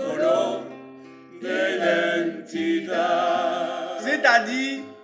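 Singing in short phrases over sustained accompanying chords.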